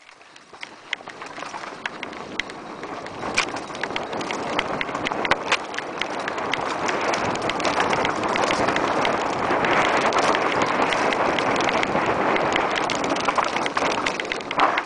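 Mountain bike descending a rocky trail at speed: a steady rushing noise of tyres on loose gravel and wind on the camera's microphone grows louder over the first half, with frequent sharp rattles and knocks from the bike over rocks.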